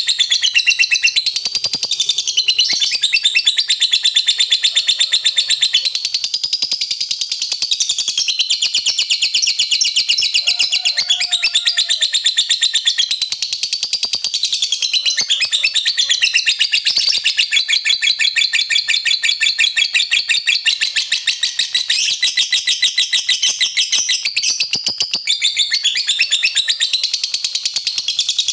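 Lovebird in full song, doing the 'ngekek panjang': a long, unbroken, high-pitched chatter of very rapid notes with squeaky rising and falling phrases, going on without a break.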